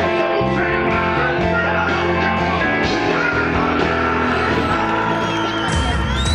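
Rock song with a male singer over a full band. Near the end it cuts abruptly to a different piece of music.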